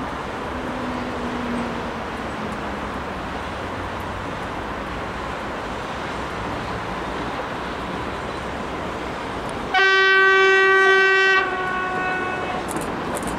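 Steady road traffic noise, then about ten seconds in a single loud horn blast at one steady pitch, about a second and a half long, from an approaching Stadler Flirt III electric train, with a fainter echo lingering about a second after it.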